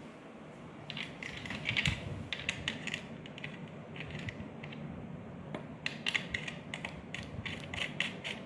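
Metal screw studs being fitted by hand into the top and bottom screw positions of a smart lock's front panel: a run of small, irregular metallic clicks and ticks.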